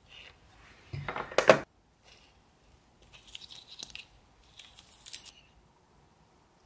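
Handling noises of small hard objects: a short clatter of clicks about a second in, then light clicking and scraping as a glass gel polish bottle and its brush cap are handled by long rhinestone-covered nails.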